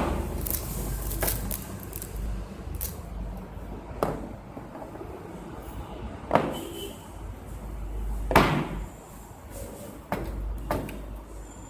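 Scattered clicks and knocks, about eight in all, the loudest about six and eight seconds in, as a DVR case and hard drive are handled, over a steady low hum.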